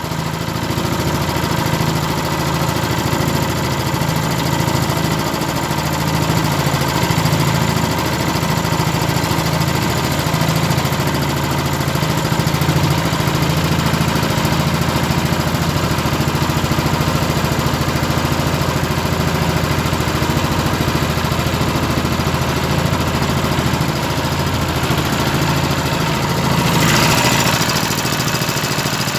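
A boat's motor running steadily under way, with a constant low hum and the hiss of water and wind. A short rush of noise rises near the end.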